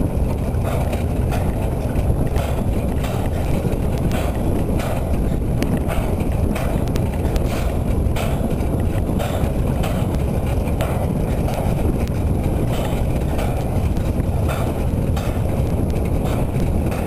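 Narrow-gauge railway wagons rolling along the track: a steady low rumble from the running gear, with frequent clicks as the wheels pass over rail joints.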